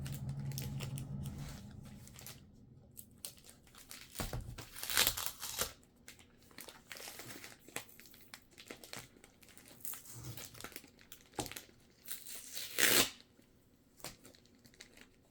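Packaging being crinkled and torn open by hand, in scattered rustles with louder tearing strokes about five seconds in and again near the end.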